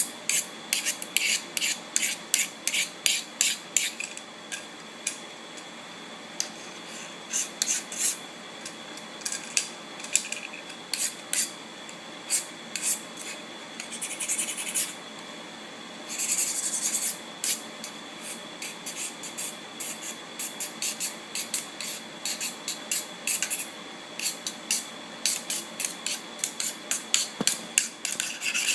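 Quick, irregular runs of short scratching and rubbing strokes close to the microphone, with a few longer rasping stretches. A faint steady high whine runs underneath.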